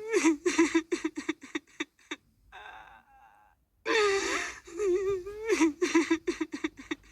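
A woman crying: a high, wavering wail that breaks into rapid gasping sobs, then a quieter whimper. The same cry starts over about four seconds in, as a looped sound effect.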